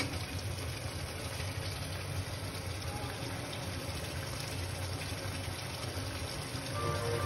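Chicken curry simmering in a frying pan on a gas stove: a steady hiss with a low hum underneath. Music comes in faintly near the end.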